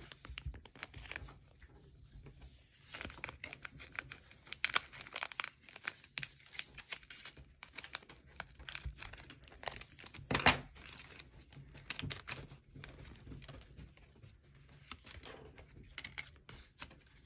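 Foil Pokémon booster-pack wrapper crinkling as it is cut open with scissors and the cards are pulled out: an irregular run of sharp crackles, the loudest about ten seconds in.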